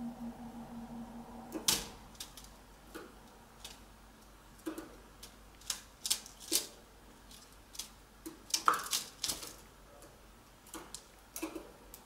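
Canaries hopping and pecking in a wire cage: irregular light taps and clicks from feet on perches and cage floor and beaks picking at seed and nesting material, with the loudest knocks about two seconds in and a cluster around nine seconds.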